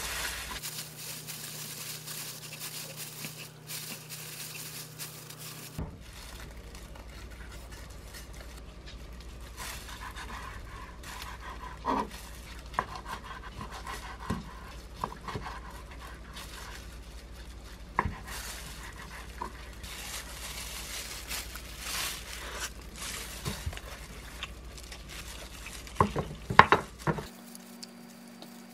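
Gloved hands rolling a kimbap, then a kitchen knife slicing the roll on a wooden cutting board: many short, sharp taps and crunches as the blade goes through the seaweed and meets the board, with a few louder clacks near the end.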